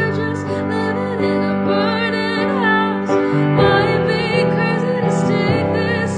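Music: a slow pop song, with a female voice singing over piano.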